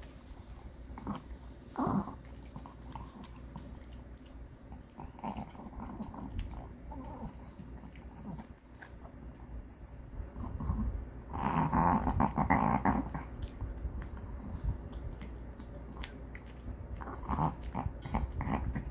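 Maltese dog eating dry kibble from a stainless steel bowl: scattered crunching and small clicks of the food and bowl, with a louder stretch of sound about twelve seconds in.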